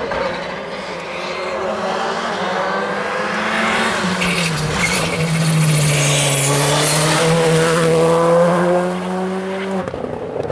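Škoda Fabia R5 rally car's engine at full stage pace. Its pitch drops sharply about four seconds in, then it runs hard and louder past the camera and cuts off suddenly near the end.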